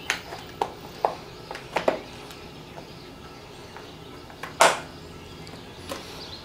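Scattered light clicks and knocks from handling a chainsaw and its controls, with one louder, sharp knock about four and a half seconds in.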